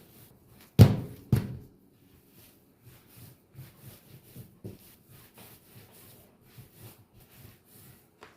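Two sharp knocks about half a second apart, the second slightly softer, then a run of faint taps and rubbing from kitchen handling.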